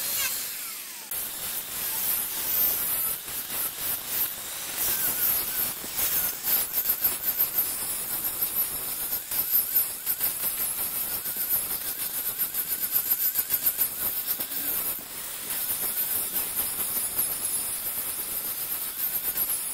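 A large wood lathe turning a wood blank, with a hissing scrape against the spinning wood that rises and falls in quick, regular surges.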